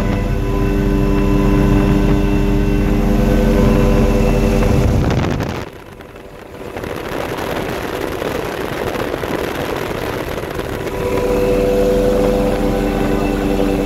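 MD 530F helicopter in flight, heard from inside the cabin: a steady hum of several tones from the turbine and rotors. Partway through, the sound drops away for about a second, then comes back as a rushing noise with the tones weaker, and the steady tones return strongly near the end.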